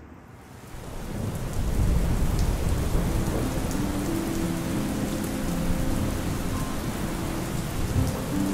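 Steady rain falling, fading in over the first couple of seconds, with a low rumble underneath. From about the middle, sustained low notes of soft music join in.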